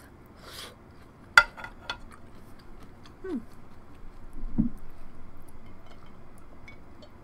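A utensil clinks sharply against the dish about a second and a half in, followed by a few lighter taps, then quiet eating sounds with two short low vocal sounds.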